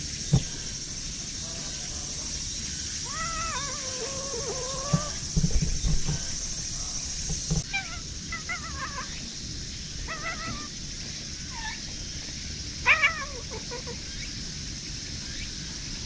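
Brown tabby cat meowing in short, sing-song calls that rise and fall in pitch, four or five times, pleased at being patted on the lower back. A few soft low thumps come in between.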